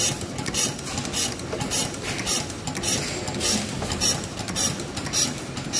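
Antique stationary gas engine running, its igniter trip and valve gear clicking in a steady rhythm of about three clicks a second over a low mechanical rumble.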